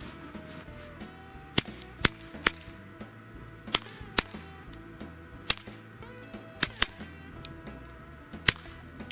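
Walther PPQ .22 pistol shot through a .22 LR suppressor with subsonic ammunition: nine sharp, pretty quiet cracks at uneven spacing, some in quick pairs.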